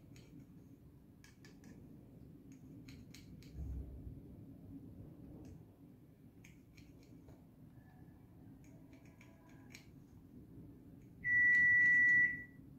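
Light clicks and scratches of a marking tool and steel ruler handled against a copper pipe, with a dull thump about a third of the way in. Near the end, a loud steady electronic beep sounds for about a second.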